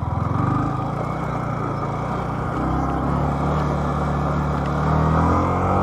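A vehicle engine running under way with road rumble, its pitch rising gradually in the second half as it speeds up.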